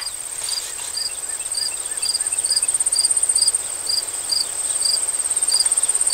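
Insects in the grass: a steady high-pitched trill, with a cricket chirping about twice a second.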